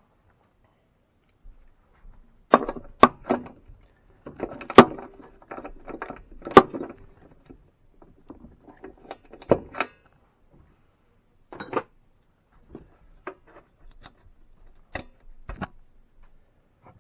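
Scattered knocks and metallic clanks of tools and mower parts being handled while the spark plug goes back into a push mower's engine, about ten sharp hits with quiet gaps, the loudest a few seconds in.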